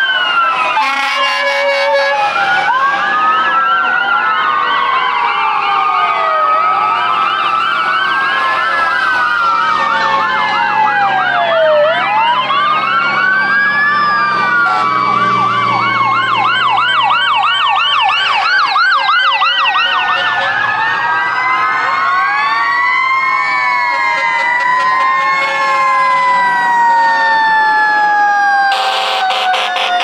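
Sirens of several fire engines sounding together: slow rising and falling wails overlapping with fast yelps. Short horn blasts sound about a second in and again near the end.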